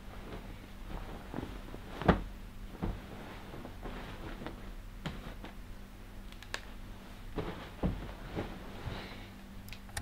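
Bedsheets rustling and soft knocks as a person shifts about in bed, with one sharp thump about two seconds in, over a faint steady hum.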